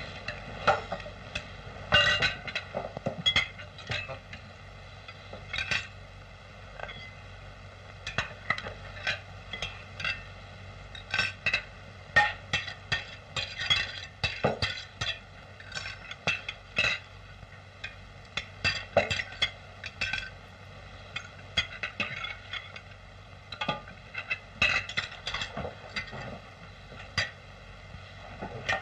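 Cutlery and crockery clinking and scraping at a meal table: many irregular sharp clinks of spoons and forks on plates and dishes, over a steady low hum.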